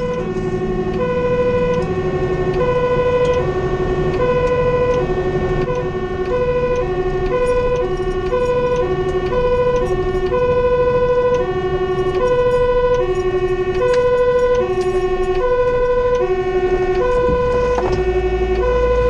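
Fire engine's two-tone siren alternating steadily between a high and a low note, heard from inside the cab over the low rumble of the truck's engine and road noise.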